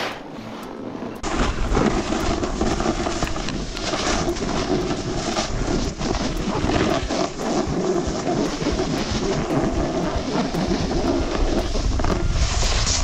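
Steady rushing scrape of a snowboard sliding over packed snow, with wind rumbling on the action camera's microphone. It gets louder about a second in, then stays even.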